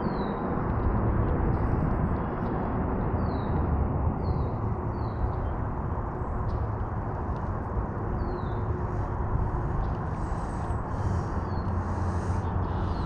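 Steady low outdoor rushing noise throughout, with a small bird giving short, high, falling chirps several times.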